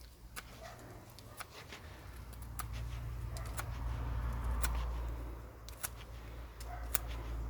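Small pocketknife blade cutting into fresh wood: irregular sharp clicks and snaps, roughly one or two a second, over a low rumble that swells about a second and a half in.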